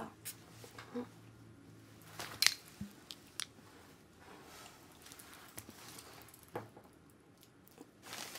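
Quiet close-up handling noises of makeup being applied to a face: scattered light clicks and taps with soft rustling, the sharpest a double click about two and a half seconds in.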